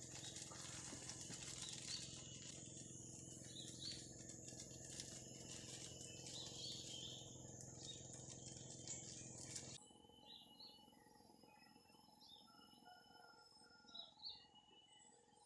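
Faint forest ambience of birds chirping in short calls over a steady high hiss; about ten seconds in, the background drops suddenly and only quieter bird chirps remain.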